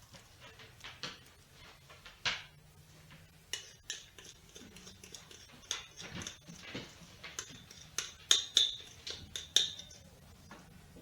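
A spoon clinking, tapping and scraping against a mixing bowl as cream cheese filling is spooned out, in irregular short knocks, with a run of sharper ringing clinks about eight to ten seconds in.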